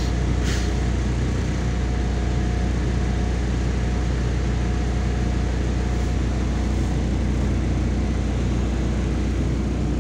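MAZ 103.465 city bus engine idling with a steady low hum while the bus stands still, heard from inside the passenger cabin. There is a brief hiss about half a second in.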